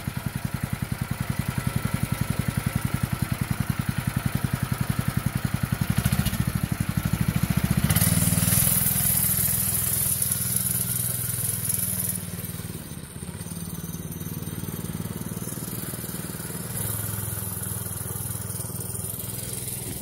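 Small single-cylinder 196cc mini bike engine idling with even firing pulses. About six to eight seconds in it revs up as the bike pulls away, then it goes on more quietly as the bike rides off down the street.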